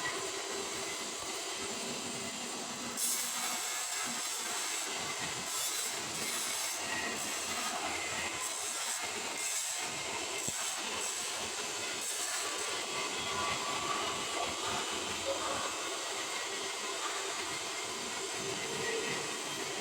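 Stick (SMAW) arc welding on carbon steel pipe with an E7018 low-hydrogen electrode: the arc's steady crackling hiss, which gets brighter and a little louder about three seconds in.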